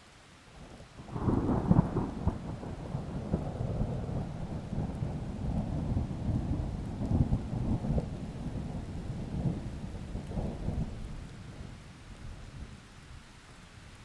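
A long peal of thunder over light rain: it breaks in sharply about a second in, rumbles unevenly for some ten seconds and dies away near the end, leaving the soft hiss of rain.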